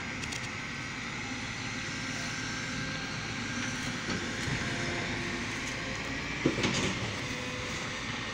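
Steady outdoor background noise, with a short knock about six and a half seconds in.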